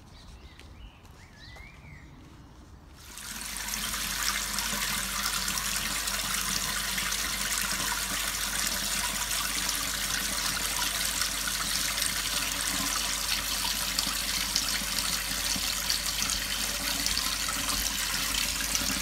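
Kitchen tap running hard into a stainless steel sink, the stream splashing onto a mug and plate: a steady hissing rush that starts suddenly about three seconds in, after a quiet start.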